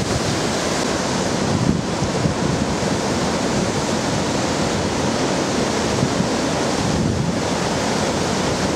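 Hurricane-force wind blowing hard with rain, gusting over the microphone in a loud, steady rush.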